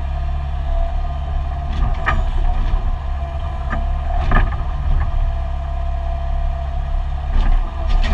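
Excavator's diesel engine running steadily as it digs, heard from inside the cab, with a steady whine over the engine hum and a few short clunks about two, four and seven and a half seconds in.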